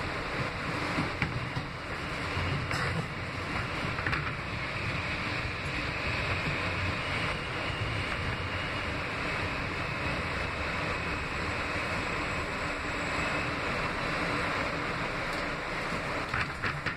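Steady running noise of an R160B subway car in motion, heard from inside the car: wheels on the rails and running gear making an even rushing rumble, with a few faint clicks in the first seconds.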